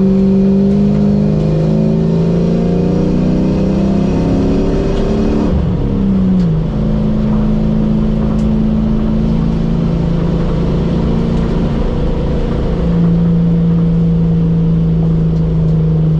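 Car engine heard from inside the cabin while driving at speed, its drone holding mostly steady with road noise underneath. Its pitch dips and changes about six seconds in and steps down again near thirteen seconds.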